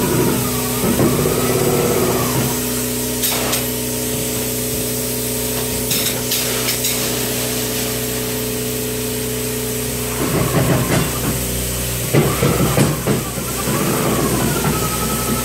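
Spray foam gun hissing as Icynene open-cell foam is sprayed into open wall cavities, over a steady machine hum. Near the start and again from about ten seconds in there is a brief busier stretch of noise.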